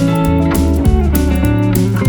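Background music led by a plucked guitar, with bass notes and a steady beat.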